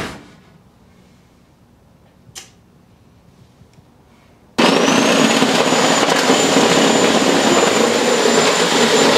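Low room tone with a single click, then about halfway through an electric power saw starts suddenly: its motor whines quickly up to a steady high pitch as it cuts through a toy ride-on car's seat.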